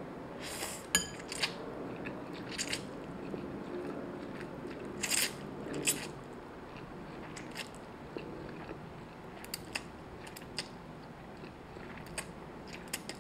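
Close-miked eating of fried instant noodles: a few short slurps as strands are drawn in off chopsticks, the loudest about five seconds in, then softer wet chewing clicks.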